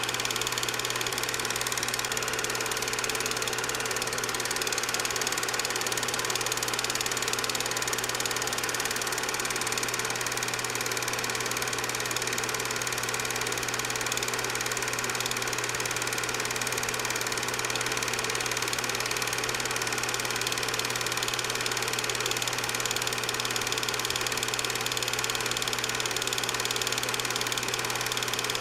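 8mm film projector running steadily: a constant motor hum with the even mechanical chatter of the film transport.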